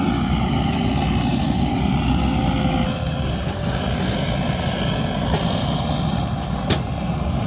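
Butane blowtorch on a screw-on gas canister firing its flame into the firebox of a small stainless wood stove to light the kindling: a steady hiss with a deep rumble that thins about three seconds in. One sharp click near the end.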